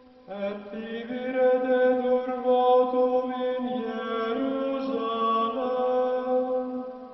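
Slow vocal chant: long held sung notes that step up and down in pitch. A new phrase begins just after the start and fades out near the end.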